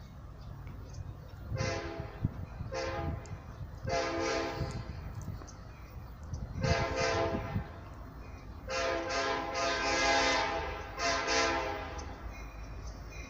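Diesel locomotive air horn sounding a series of about six blasts, some short and some long, the longest lasting about two seconds, over a steady low rumble.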